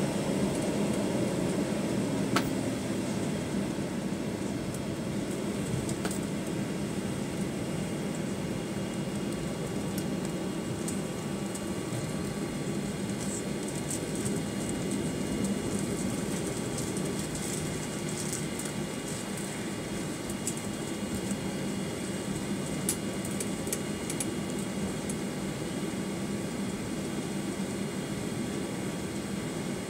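Cabin noise of a Boeing 737-900ER taxiing after landing: its CFM56-7B engines at idle and the air conditioning making a steady hum and hiss, easing a little in the first few seconds as the jet slows. A single sharp click comes a couple of seconds in, and a few faint ticks follow later.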